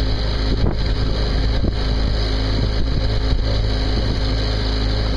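The yacht's small inboard marine diesel, a Volvo Penta MD1 single-cylinder, running steadily under way, with wind noise on the microphone.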